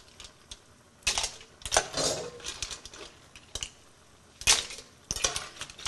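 Cooked mussel shells clinking and clattering against a metal spoon and the pot as they are scooped out, in several short rattles with quiet gaps between.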